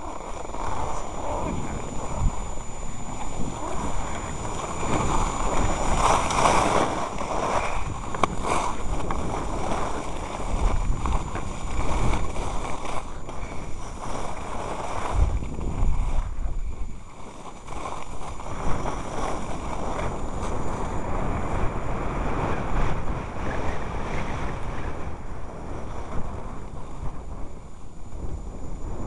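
Wind buffeting the microphone, with the hiss and scrape of sliding over snow, while riding down a ski slope; it eases briefly a little past halfway.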